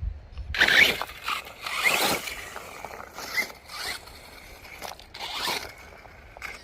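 An FTX Outlaw RC truck's electric motor and drivetrain whining in several short throttle bursts, with the tyres scrabbling and scraping over rough ground.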